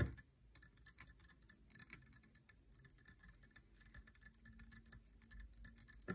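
Near silence filled with faint, irregular light ticks and clicks from hands working fly-tying tools while thread is wrapped onto a hook. A sharper click comes at the start and another near the end.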